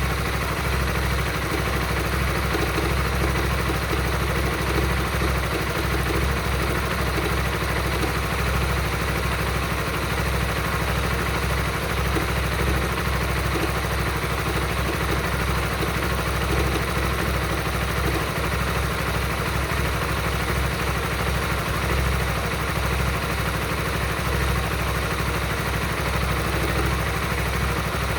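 Honda Supra GTR 150's 150 cc single-cylinder engine idling steadily, making a noise the owner finds weird and cannot identify.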